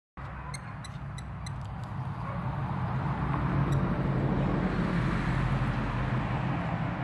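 Road traffic noise: a steady rumble with a low engine hum that swells louder through the middle.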